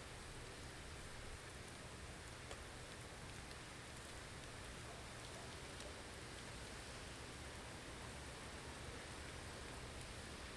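Steady blizzard ambience: an even hiss of wind and blowing snow, with faint scattered ticks.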